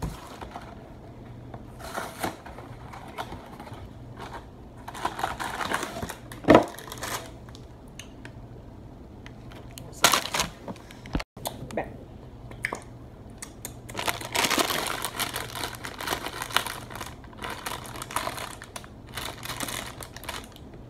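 Crinkling and rustling of a brownie mix's cardboard box and plastic inner bag being handled and opened, with scattered clicks and knocks and a few louder stretches of crinkling.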